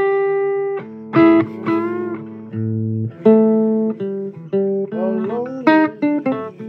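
Blues guitar playing slow single notes and short phrases, each note ringing on, with a few notes bent up and back in pitch.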